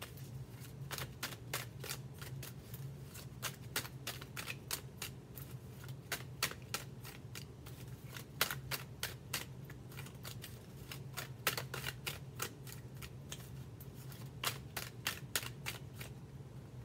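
A deck of tarot cards being shuffled by hand: quick runs of sharp card clicks and riffles in irregular clusters, over a faint steady low hum.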